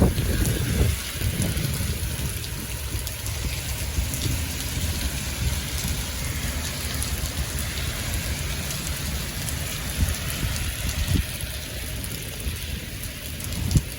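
Heavy rain falling steadily in a thunderstorm, with a low rumble of wind buffeting underneath.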